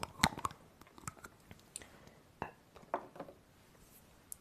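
Long fingernails tapping on a plastic hair-product bottle: irregular sharp taps, the loudest just after the start, then sparser and fainter.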